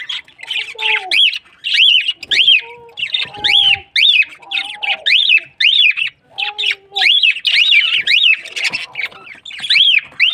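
Small birds chirping continuously: quick rising-and-falling chirps, two or three a second, with lower short calls mixed in now and then.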